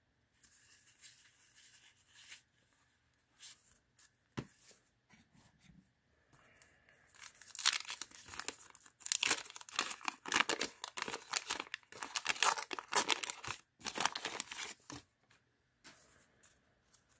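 A wax-paper wrapper of a 1990 Fleer basketball card pack being torn open and crumpled, with loud crackling from about seven and a half to fifteen seconds in. Before that there are softer rustles of paper and cards being handled.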